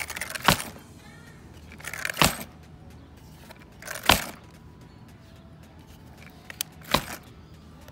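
An ARRMA 6S RC monster truck's plastic chassis and suspension clacking as it is pushed down by hand and released. There are four sharp clacks, two to three seconds apart, with two lighter ones just before the last.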